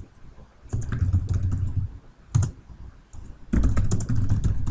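Keys typed on a computer keyboard: a quick burst of keystrokes, one single keystroke, then another quick burst.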